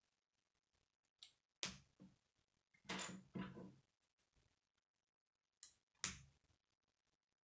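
Plastic K'nex rods and connectors being snapped together by hand: sharp clicks in three pairs, about one, three and six seconds in.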